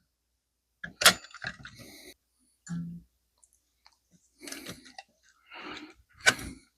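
Metal parts of a Molle No. 3 typewriter being handled and fitted together as the action is seated back onto the base: a sharp click about a second in, scraping and rattling, and another sharp click near the end.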